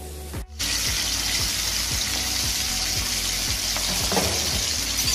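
Beef steaks sizzling in hot oil in a frying pan, a steady loud hiss that starts suddenly about half a second in. A faint music beat runs underneath.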